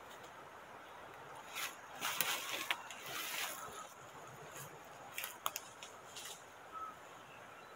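Footsteps and rustling on dry leaf litter and loose soil, loudest in a stretch about two to four seconds in, followed by a few sharp clicks about five seconds in.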